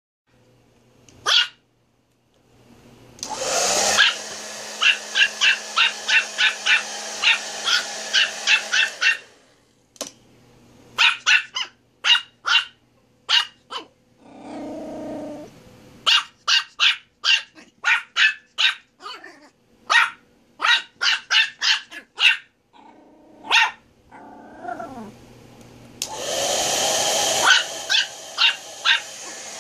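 A Pomeranian barking in quick runs of sharp, high yaps, about two to three a second. A steady rushing noise runs behind the barks in two stretches, near the start and near the end.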